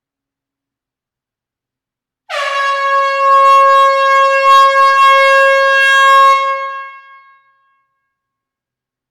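An air horn sounding one long, steady blast that starts abruptly a couple of seconds in, holds for about four seconds and dies away over the last second.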